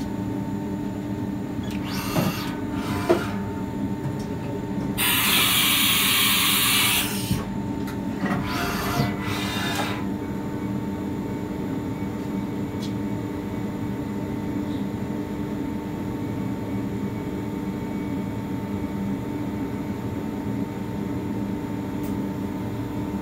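Haas VF-0E CNC vertical machining centre running: a steady hum of motors and fans with several fixed tones. A loud hiss lasts about two seconds from about five seconds in, with shorter bursts of noise a few seconds before and after it.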